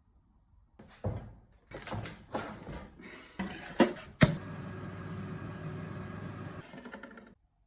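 Kitchen handling noises: a few knocks and clatters and two sharp clicks, then a steady mechanical hum for about three seconds that cuts off suddenly.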